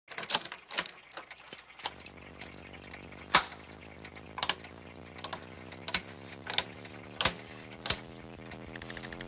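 Toggle switches on a large amplifier's control panel flipped one at a time, each a sharp click, about a second or so apart. From about two seconds in, a steady electrical hum of the amplifier powering up comes in and grows fuller. Near the end, a quick run of clicks.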